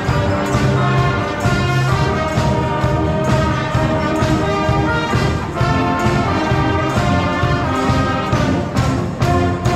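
School wind band of woodwinds and brass, clarinets, flutes, trumpets and trombones, playing together in full over a steady drum beat.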